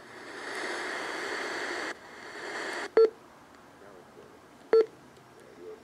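A steady hiss of noise for about three seconds, then two short electronic beeps nearly two seconds apart.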